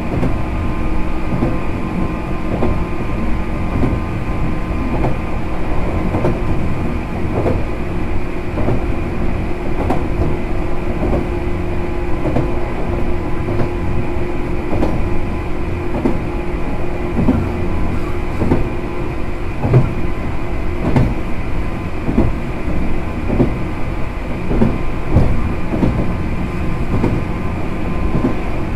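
JR West 105-series electric train with MT55A traction motors running at a steady speed between stations. It gives a constant rumble with an unchanging motor and gear hum, and frequent knocks as the wheels cross rail joints.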